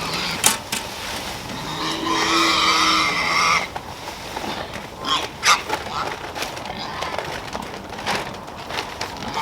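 A farm animal calls once, a drawn-out cry of about two seconds beginning near the two-second mark, amid scattered knocks and clatter.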